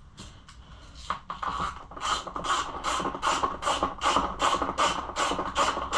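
Hand ratchet clicking in quick, even strokes, about three a second, as it runs 8 mm bolts down on a plastic dirt-bike airbox cover. The strokes start faintly about a second in and are steady from about two seconds in.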